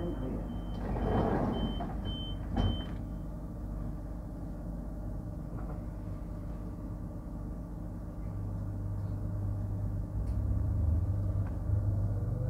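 Electric suburban train's door-closing warning beeps sounding about twice a second, with a short rush of noise and a knock as the sliding doors shut just under three seconds in. Then the carriage's steady hum, which grows louder about eight seconds in as the train starts to move off, with a low motor whine beginning to rise near the end.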